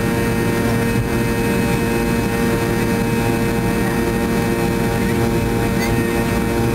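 Fokker 70's rear-mounted Rolls-Royce Tay turbofan running steadily at taxi power, heard from inside the cabin: a constant whine over a low rumble.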